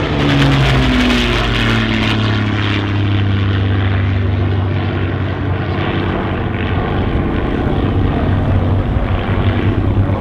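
De Havilland Mosquito's twin Merlin V12 engines running loud as the aircraft flies past, the engine note dropping in pitch in the first second or so, then settling into a steady low drone.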